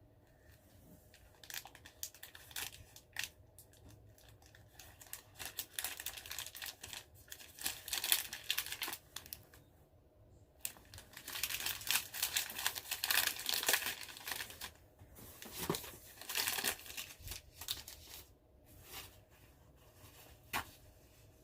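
Plastic candy wrapper crinkling and rustling as it is handled, in irregular spells that are busiest in the middle, with short quiet gaps.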